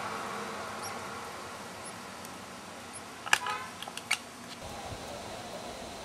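Faint, very high, thin peeps from Bewick's wrens, about one a second over the first three seconds. Around the middle come a loud sharp click with a short buzzy tail and a few smaller clicks, all over a steady low hiss.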